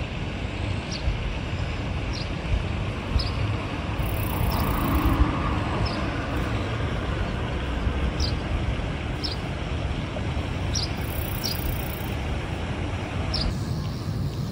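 Steady outdoor ambience: a low rumble under a hiss, with a short high chirp repeating roughly once a second. The hiss thins near the end.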